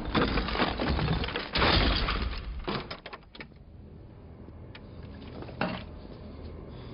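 Crashing and breaking debris: a loud burst of shattering and crumbling for about two and a half seconds, then a few scattered clatters, dying down to a quieter background with one short knock near the end.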